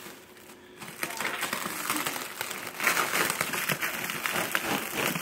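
Packaging being handled and pulled apart, crinkling and crackling with many small clicks, starting about a second in.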